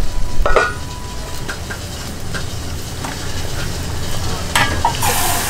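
Ramen broth boiling hard in an aluminium pot on a gas burner: a steady bubbling over a low burner rumble, with a few light clinks. A broader hiss rises near the end.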